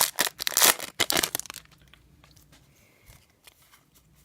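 A foil trading-card pack wrapper being torn open and crinkled: a burst of ripping and crinkling for about the first second and a half, then only faint handling sounds.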